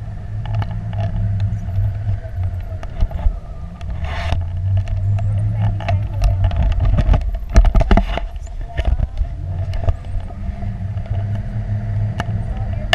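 Wind buffeting the microphone of a camera on a tandem paraglider in flight: a steady low rumble with gusts, strongest about halfway through, and scattered clicks and knocks.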